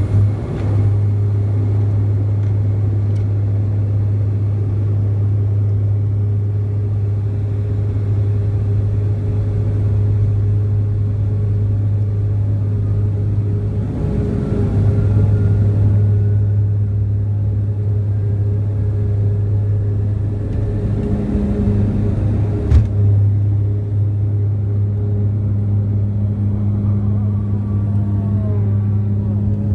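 Cabin sound of a De Havilland Dash 8-400 (Q400) turboprop during its takeoff run: a loud, steady low propeller drone with the engine noise. A single sharp knock comes about 23 seconds in.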